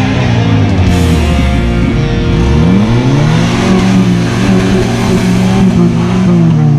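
Jeep Wrangler YJ engine revving up and down under load as it climbs a steep dirt hill, rising in pitch in the first second and falling away near the end, with rock music playing over it.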